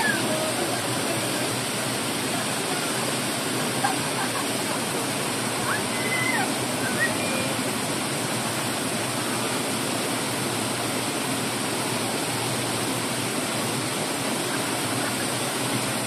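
Small cascading waterfall: water rushing steadily over low rock ledges into a shallow pool.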